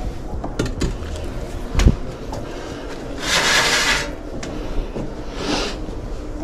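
Potted plants being lifted and set down: a few light knocks, a dull thump about two seconds in, and a brief scraping hiss of a pot sliding over a surface around the middle, with a fainter one near the end.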